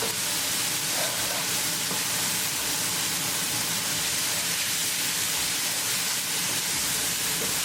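Tomato and spice masala sizzling steadily in hot oil in a frying pan over high gas heat, as the ground spices cook into the tadka.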